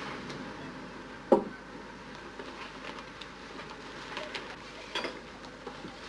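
Things being handled and rustled in a cardboard box, with one sharp knock about a second in and a lighter knock near five seconds, over low hiss.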